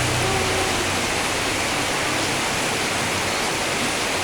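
Steady heavy rain, an even hiss of falling water, with a low hum underneath that fades out about halfway through.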